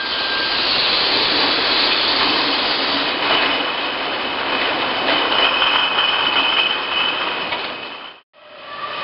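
Bottling-line machinery running steadily: a dense noise of conveyors and many glass beer bottles moving together, with a faint high whine in the middle. The sound drops out for a moment about eight seconds in, then comes back.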